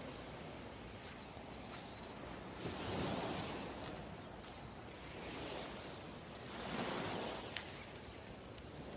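Sea waves breaking on the shore over a steady wash of surf, two waves swelling up about four seconds apart.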